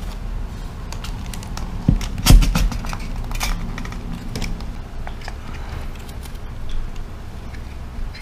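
Plastic clicks, knocks and light rattles from a rear-view-mirror phone holder being handled as a smartphone is pressed into its spring-loaded clamp. The loudest knocks come about two seconds in, with lighter ticks after.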